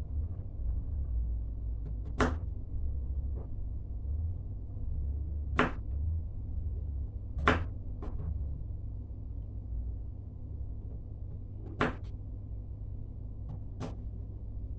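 Crinkle cutter chopping slices off a carrot: five sharp knocks of the blade striking the cutting board, spaced a couple of seconds apart, over a steady low hum.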